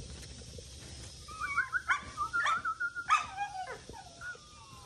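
American Bully puppies whining and yipping: a quick string of short, wavering high cries that starts about a second and a half in.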